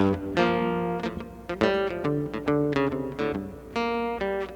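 Acoustic guitar playing the intro to a country song: single notes and chords picked in a steady rhythm, each note ringing on.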